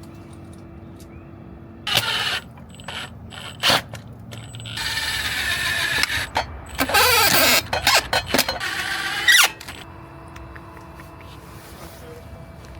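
Cordless impact driver running in bursts: two short bursts, then a longer run of about five seconds that stops and starts several times.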